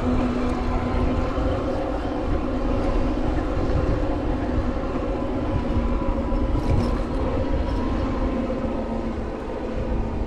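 An e-bike riding under motor power: a steady whine from its electric motor over a low rumble of tyres and wind.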